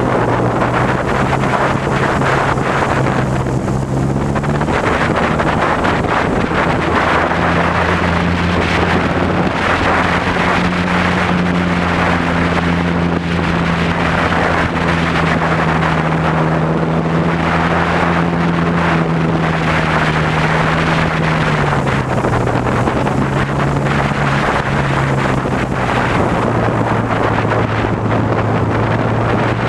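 Cub airplane's engine and propeller running in flight, with heavy wind rushing over the camera's microphone. The engine note steps up in pitch about four seconds in and drops back again after about twenty-two seconds.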